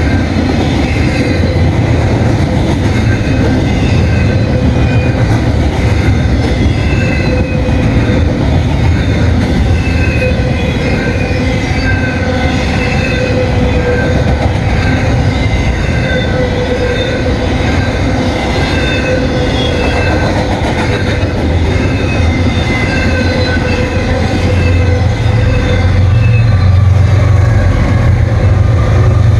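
Long double-stack intermodal freight train rolling past, its wheels squealing in several wavering high tones over the steady rumble of the cars. About 25 seconds in, a deeper diesel drone grows louder as the train's mid-train BNSF locomotives come by.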